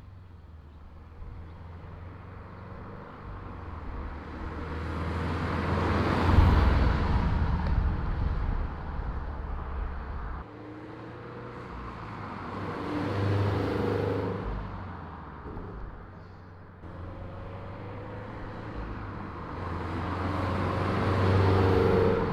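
BRZ/FR-S/86 2.0-litre flat-four, breathing through unequal-length headers and an Invidia Q300 cat-back exhaust, driving past three times. Each pass swells to a peak as the car nears and fades as it moves away.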